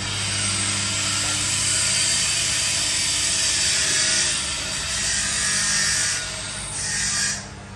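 Electric grinder running against steel, a steady high hiss of abrasion over the motor's hum. It eases off about six seconds in, comes back briefly and stops shortly before the end.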